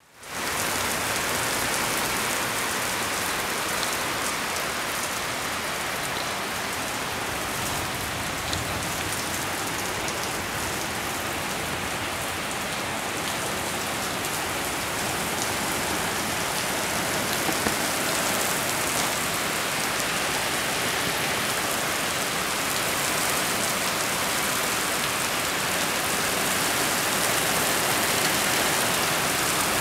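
Heavy thunderstorm downpour: rain pouring steadily onto pavement and grass, a dense, even hiss.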